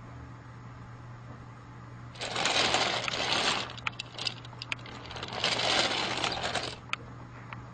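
Two bursts of rapid rattling, each about a second and a half long, with scattered sharp clicks between and after them, over a steady low hum.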